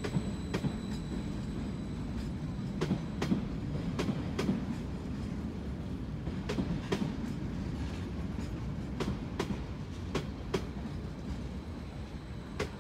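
A train rolling slowly over rail joints, its wheels clacking in pairs about every two seconds over a steady low rumble.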